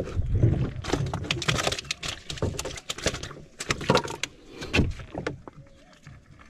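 A just-landed small snapper flopping on the floor of a boat: an irregular run of slaps and knocks against the hull and loose wooden boards, with the rod and gear clattering, dying away near the end.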